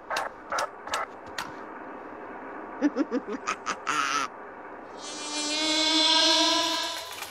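Cartoon housefly buzz amplified through a chain of megaphones, swelling to a loud, many-pitched buzz in the last two seconds and then fading. Before it come a run of sharp clicks and a brief hiss.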